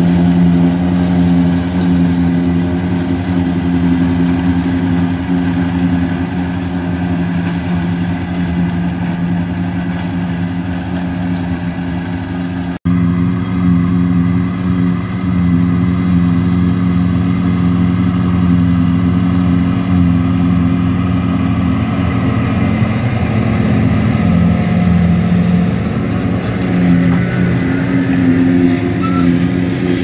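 Tractor diesel engines working a trailed forage harvester chopping grass and blowing it into a silage trailer alongside: a steady, loud drone. It is cut off for an instant about 13 seconds in.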